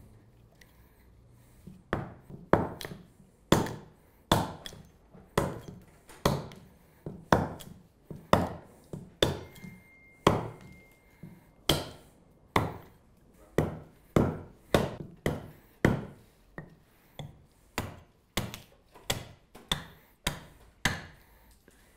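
Carving axe chopping into an alder spoon blank held on a wooden chopping stump: a steady series of sharp wooden chops, about two a second, starting about two seconds in.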